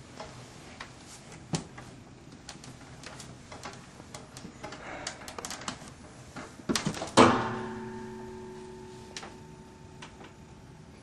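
Scattered light clicks and knocks, then, about seven seconds in, a loud sharp crash followed by a ringing tone that dies away over a few seconds.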